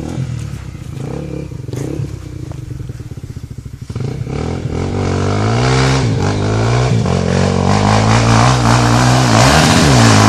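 Honda Tornado trail motorcycle's single-cylinder four-stroke engine running low and steady, then about four seconds in opening up and getting louder, its pitch rising and falling as the throttle is worked.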